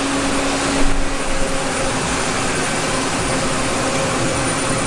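Steady din of CNC machining centers running in a machine shop, an even noise with a faint steady hum underneath.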